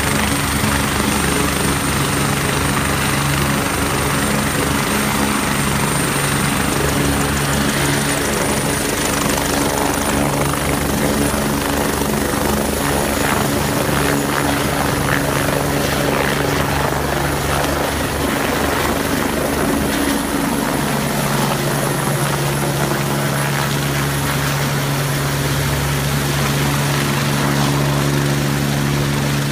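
Twin-turbine MBB/Kawasaki BK 117 helicopter with Lycoming LTS101 engines, its rotor blades chopping and its turbines whining at flight power as it lifts off and climbs away overhead. The high turbine whine rises slightly partway through as power comes up for takeoff.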